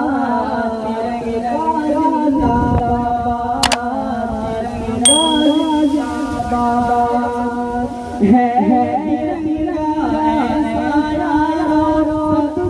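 Men's and boys' voices singing a slow patriotic song together in unison, holding long notes.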